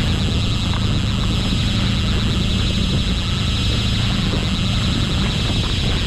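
A conventional trolling reel's clicker buzzing steadily as line is pulled off it, a sign that a fish has taken the trolled lure. The steady hum of the skiff's outboard motor runs underneath.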